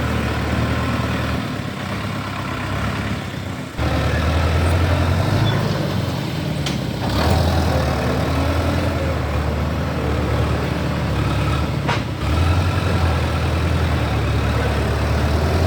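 A vehicle engine running steadily with a low hum. The sound breaks off abruptly and resumes three times.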